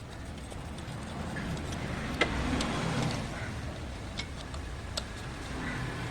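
Steady low background rumble with a few sharp metallic clicks of hand tools, about two seconds in and again near four and five seconds.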